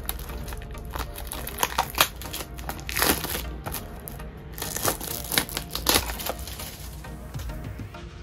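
Clear plastic shrink wrap crinkling and tearing as it is peeled off a small cardboard box, in irregular crackles that are densest in the first six seconds.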